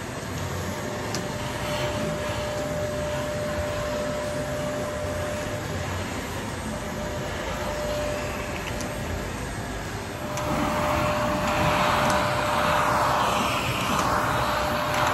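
Canister vacuum cleaner running steadily with a thin whine, its hose and wand worked along the floor. It gets louder and hissier about ten seconds in.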